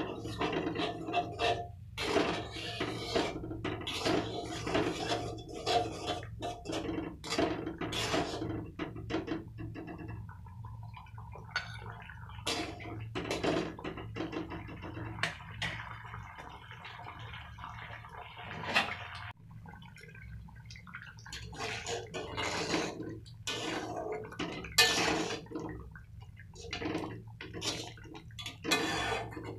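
Curry bubbling in a metal wok while a steel spatula stirs and scrapes the pan, mixing in rice-flour paste to thicken it, with irregular sharp scrapes and splashes over a steady low hum.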